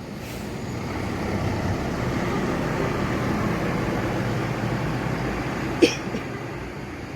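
A large bus drives past, its engine and road noise swelling over about a second, holding steady, then fading, with a brief sharp sound about six seconds in.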